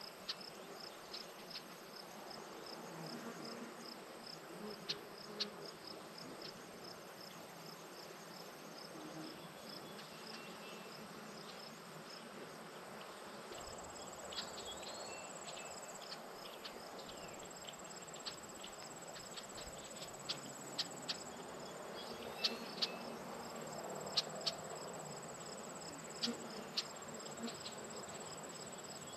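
Insects chirping in a summer field: a regular pulsing high chirp, joined about halfway through by a steady higher trill, with scattered sharp ticks in the second half.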